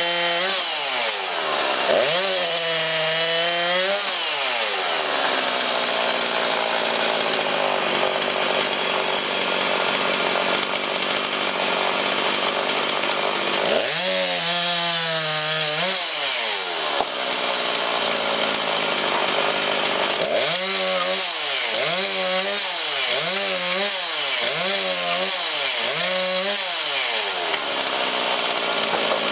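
Two-stroke chainsaw cutting firewood. The engine revs up and drops back a few times, with long stretches of steady, dense saw noise in between, and a run of about six quick revs near the end.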